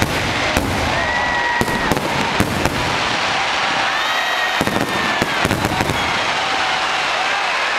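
Aerial fireworks going off: scattered sharp bangs and crackles over a steady hiss, with thin gliding whistles, the bangs coming thick and fast a little after halfway.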